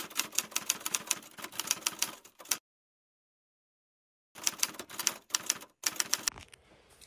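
Typewriter keystroke sound effect: a quick run of clacking keys for about two and a half seconds, a silent pause, then a second shorter run of keystrokes.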